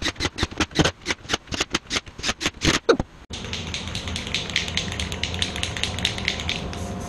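Rapid, sharp knocks on a wooden ring of pine boards, about five a second. They stop abruptly about three seconds in and give way to a steady low hum with a high hiss.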